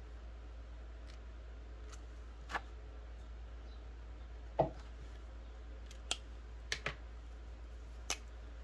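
A handful of separate short clicks and taps from a pen being handled against a paper sheet on a table, the loudest a lower knock about halfway through, over a steady low hum.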